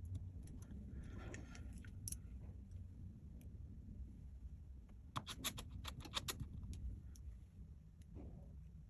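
Light clicks and taps of small tools and phone parts handled during phone reassembly, with a quick run of about eight sharp clicks a little past halfway, over a steady low hum.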